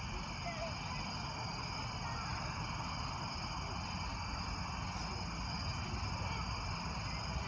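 Night insect chorus: a steady, many-voiced high shrill of insects calling together, over a constant low rumble.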